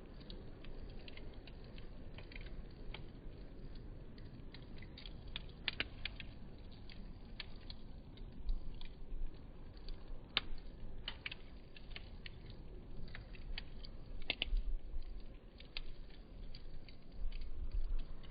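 Wood campfire crackling, with many small irregular pops and a few louder snaps over a low, steady rumble of the fire.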